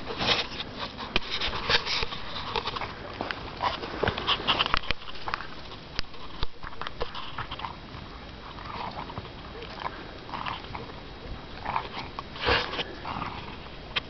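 Hunting dogs sniffing and nosing about in snow and brush: rapid snuffling with crunching and rustling, busiest in the first few seconds and sparser later, with a louder burst near the end.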